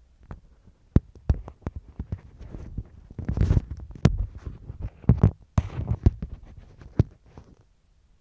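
Handling noise: irregular knocks, clicks and rubbing as the phone is moved about against the mbira's deze resonator and its bottle-cap rattles, with no notes played.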